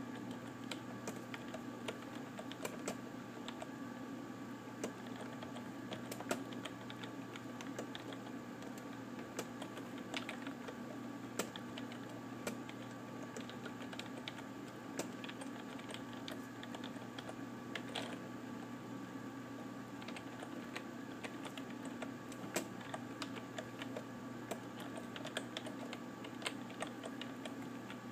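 Typing on a computer keyboard: irregular key clicks, with a steady low hum underneath.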